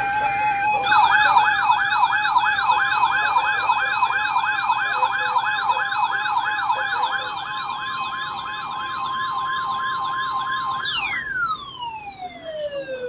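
Electronic emergency-alert siren tone: it opens with a brief steady tone, then warbles up and down about three times a second, with a steady high tone joining it a few seconds in. Near the end it falls away in one long downward glide, like a siren winding down.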